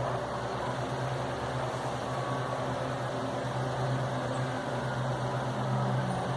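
Britânia Mega Turbo 40 cm 130 W electric fan running steadily with its blade fitted: a constant motor hum over an even rush of air. The motor, which had been seized, now turns freely under the load of the blade.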